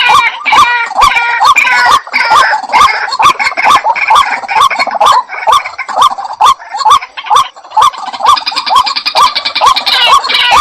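Waterhen calling: a loud, rapid run of repeated call notes, about two to three a second, with busier chatter above them.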